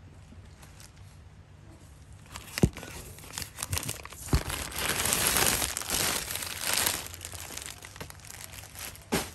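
Plastic courier bags crinkling and rustling as parcels are handled inside a cardboard shipping box, with a few sharp knocks against the box. It starts quiet; the crinkling is densest around the middle.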